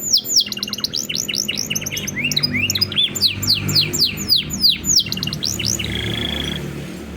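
Domestic canary singing a fast, varied song: rapid runs of repeated downward-sweeping whistled notes and trills, ending in a short held buzzy note.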